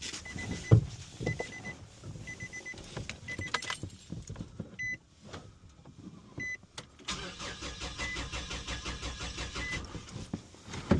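A vehicle warning chime beeps about once a second. About seven seconds in, the Nissan Frontier's 2.5-litre four-cylinder engine cranks on the starter for about four seconds without starting, as in a relative compression test.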